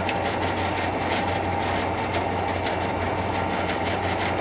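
Steady running noise inside the cab of an ex-CN EMD FP9A diesel locomotive under way: the engine's low drone and the rolling of the wheels on the rails, with a few faint clicks.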